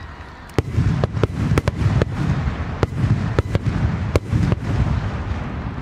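Aerial firework shells bursting in quick succession: sharp bangs begin about half a second in, over a rolling low rumble of booms, and thin out near the end.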